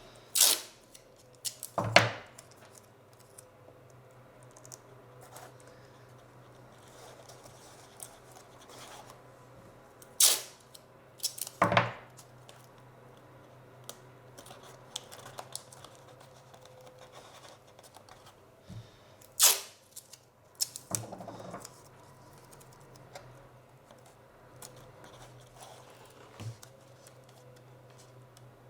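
Adhesive tape being pulled off a roll in short strips: three pairs of sharp ripping sounds about a second and a half apart, with quiet handling between and a faint steady hum underneath.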